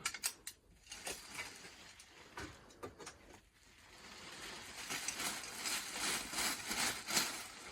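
Handling noise from garments being shown: a few short clicks and taps, then a rustle that grows louder from about four seconds in.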